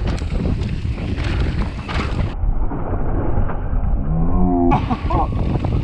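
Mountain bike descending a dirt trail: steady wind and trail rumble with frequent knocks and rattles from the bike. A rider's drawn-out call comes about four seconds in, followed by a shorter one.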